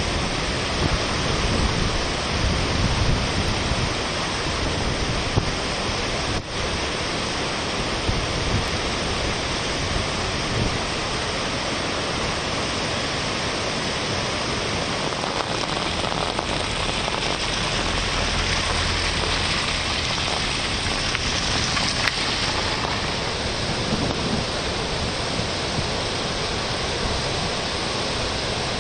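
A river in flood, its muddy torrent rushing over rocks in a steady, heavy roar of water.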